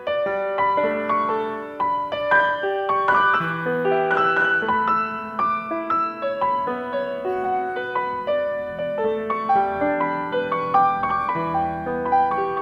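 Background piano music: a steady run of struck notes in a calm melody.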